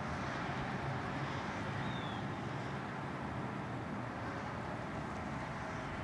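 Distant Whelen electronic outdoor warning sirens heard faintly as a steady tone under a constant wash of wind and street noise.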